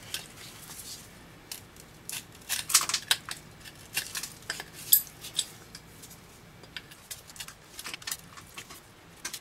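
Steel pliers clicking and scraping against a corroded carbon-zinc lantern battery cell as it is pried apart, with bits of crumbling casing clinking onto a metal work surface. The clicks come in quick clusters, thickest in the middle and sparser near the end.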